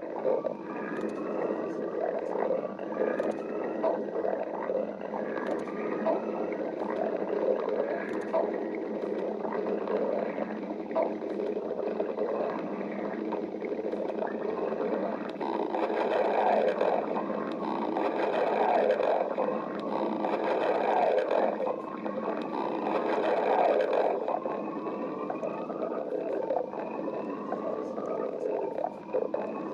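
A person's stomach growling and gurgling without a break, with many short rising squeaky glides; it grows louder for several seconds past the middle.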